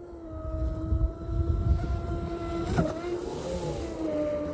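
Hobbyking Hydro Pro Inception RC boat's brushless motor on 6S whining steadily at full throttle. The pitch wobbles briefly about three seconds in and drops slightly near the end.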